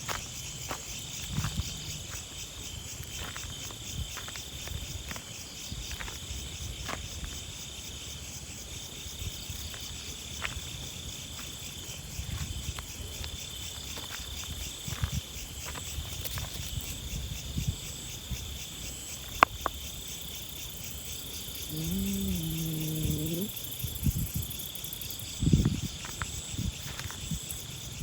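Steady, high, pulsing chirring of insects in the grass, with scattered light rustles and taps close by. About 22 seconds in, a low pitched sound lasts about a second and a half.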